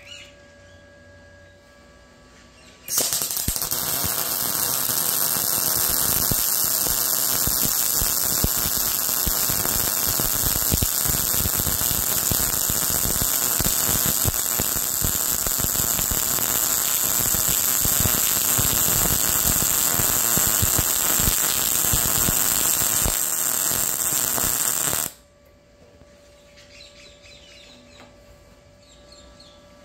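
MIG welding arc from an Arccaptain MIG200 at 170 amps with 0.9 wire and mixed shielding gas, running a bead on 3/16 steel: a steady, even crackle. It starts about three seconds in, lasts a little over twenty seconds, and cuts off abruptly. A faint steady hum is heard before and after it.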